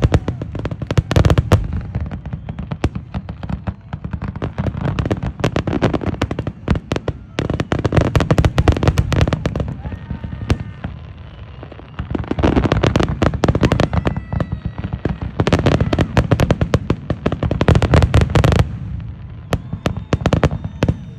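Fireworks bursting in rapid, dense volleys of bangs and crackles that come in waves, with two short thinner lulls, the longer one near the end.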